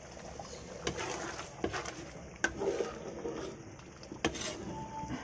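Cooking pot and stove being handled: four or so sharp knocks and clicks of metal over a steady low hiss from the steaming pot of stew.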